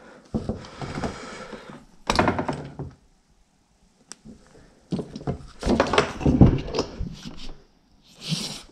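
Knocks, thunks and rustling as a spoked moped wheel and a tyre-pump hose are handled on a wooden workbench, with a cluster of sharp knocks about two seconds in and another busy run of knocks after a short quiet gap.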